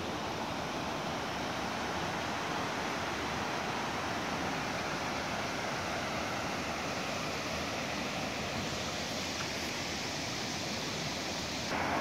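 Steady rushing noise of running water, even and unbroken, growing a little louder just before the end.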